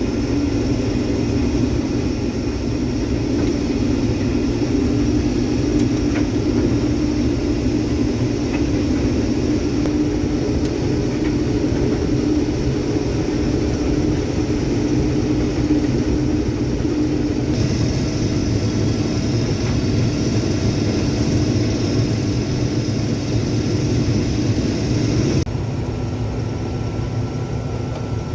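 Combine harvester running while cutting soybeans: a steady engine and threshing drone with a constant hum. About two-thirds of the way through a higher hiss joins in, and near the end the whole sound drops down a step.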